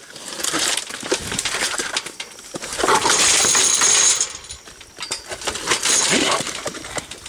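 Wild pig in a welded wire-mesh trap shoving against the cage, so the mesh and its steel post rattle and clink in quick strokes. A louder, harsh burst about three seconds in lasts around a second and a half.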